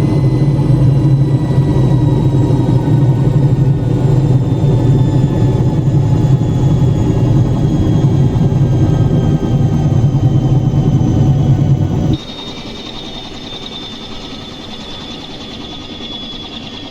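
Bell 47 helicopter's piston engine running loud with its pitch slowly falling. About twelve seconds in the engine cuts out and the low rumble stops at once, leaving a high whine that keeps winding down as the rotor system coasts.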